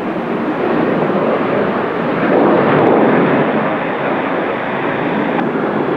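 Jet engines of a departing Boeing 737-800 at takeoff thrust as it climbs away: a dense, steady engine noise that swells slightly around the middle and eases a little after.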